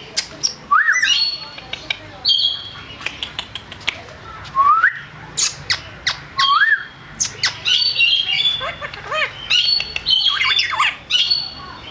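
Yellow ringneck parrot calling without words: short rising whistles, sharp clicks and harsh squawks in irregular bursts.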